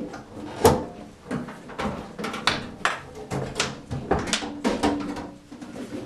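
Case cover being handled and lifted off a 1913 Royal No. 5 standard typewriter: a string of irregular clunks, knocks and scrapes, the loudest a little under a second in.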